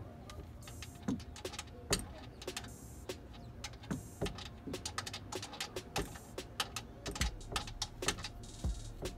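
Socket ratchet wrench backing out a car's oil drain plug: sharp irregular clicks of the pawl, with four short runs of fast ratcheting about a second, three, six and nearly nine seconds in.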